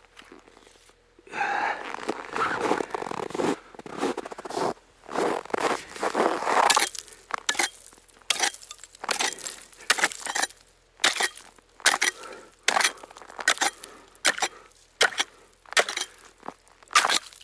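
Ice being broken open at a frozen-over fishing hole: a few seconds of crunching and scraping, then repeated sharp chopping strikes, about one or two a second, with ice crunching and clinking.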